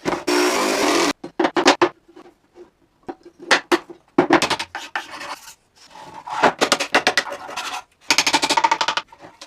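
Wood being shaped by hand with repeated rubbing and rasping strokes. The sound comes in short segments that start and stop abruptly.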